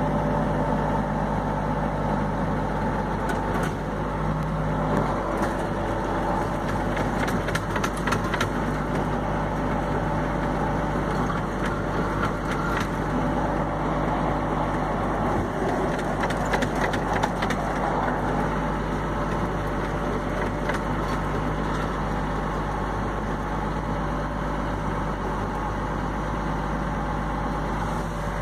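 Tractor engine running steadily, heard from inside the cab, with bursts of crunching and crackling between about four and eighteen seconds in as the collapsed corrugated-steel grain bin is pulled.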